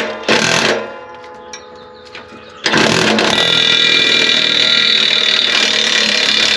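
Heavy-duty impact wrench rated about 700 ft-lb, running on a seized exhaust fastener. It gives a short burst right at the start. From a little under three seconds in, it runs in one long, loud, steady stretch.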